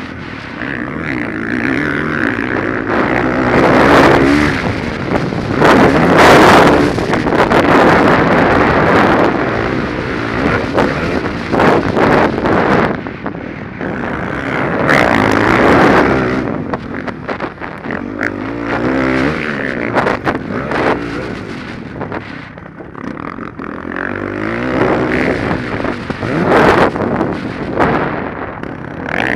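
Dirt bike engine revving hard, its pitch climbing and dropping off again and again, with wind rushing over the rider-mounted camera microphone.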